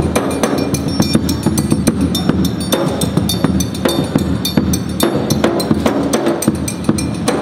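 Instrumental music with busy percussion: many quick strikes over low pitched instrumental notes.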